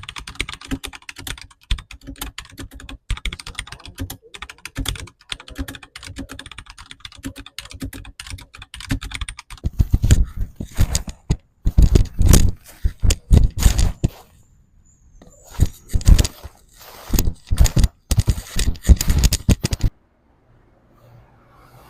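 Rapid, irregular clicks and taps. About halfway through they give way to louder, heavier knocks and thumps, which stop a couple of seconds before the end.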